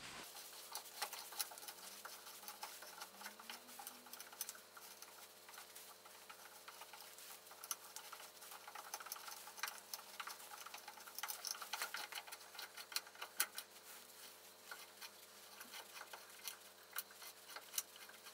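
A hand tap turned in a tap wrench, cutting threads in an aluminium oil pan, giving irregular clicks and ticks as bits of steel left in the threads from a broken bolt break out.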